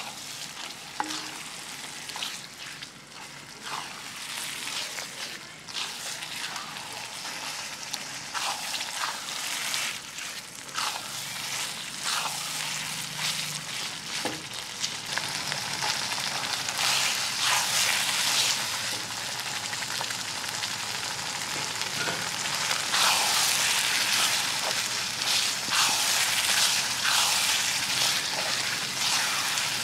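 Thick chili sambal paste frying in oil in a wok, sizzling and spattering as a spatula stirs it. The sizzling grows louder about halfway through.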